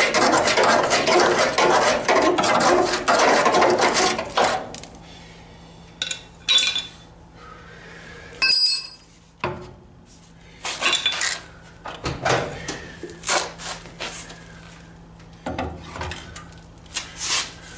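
Rusted body sheet metal crackling and scraping as it is picked and broken away by hand for about the first four seconds. This is followed by scattered metallic clinks and knocks as an angle grinder is handled against the panel, one ringing clink near the middle.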